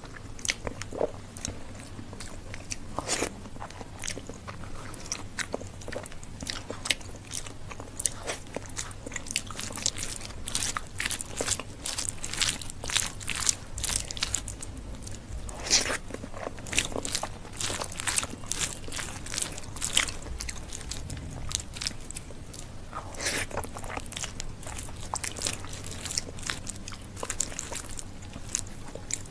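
Close-miked eating sounds: fingers squeezing and mixing soft rice with mashed carrot bharta on a banana leaf, with chewing, a dense uneven run of small wet clicks and smacks.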